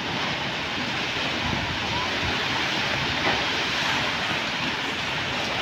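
Super typhoon wind blowing hard and steadily with driving rain, a dense unbroken rush of noise.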